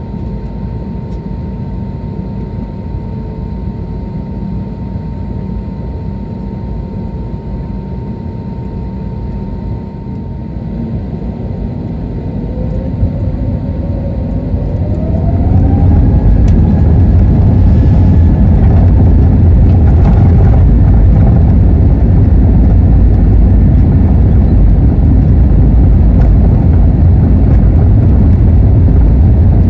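Airbus A320neo's twin turbofan engines heard from inside the cabin behind the wing: a steady idle hum with a thin whine while lined up. About twelve seconds in a rising whine comes in as the engines spool up to takeoff thrust, and from about sixteen seconds the engines run at takeoff power, loud and steady, for the takeoff roll.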